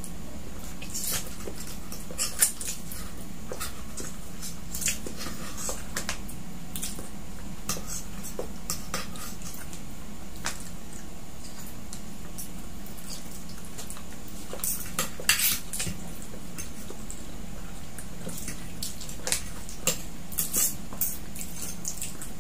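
Forks clinking and scraping on plates while eating spaghetti: irregular light clicks, a few louder ones, over a steady low hum.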